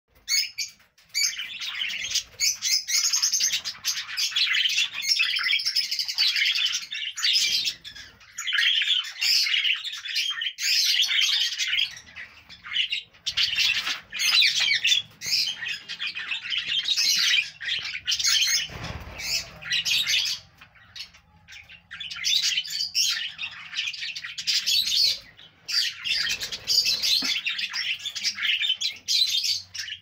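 A flock of budgerigars chattering and warbling: many overlapping chirps and squawky notes in long runs, with a few short lulls.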